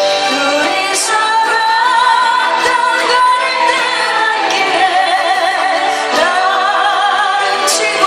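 Music: a slow ballad melody in long notes with a wavering vibrato, over sustained accompaniment.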